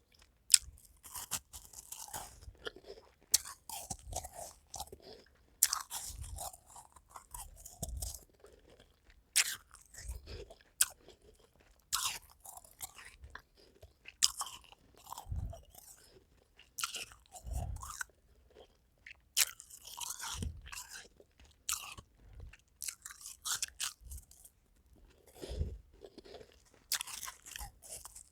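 Close-up crunching and chewing of half-moon ice cubes and freezer frost: sharp crackling bites at an irregular pace, a few seconds apart, with short pauses between.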